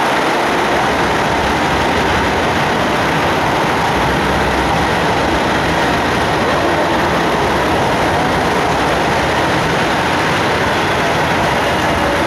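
KiHa 281 series diesel multiple unit running past along the platform: a steady, loud rumble of its underfloor diesel engines mixed with wheel and rail noise.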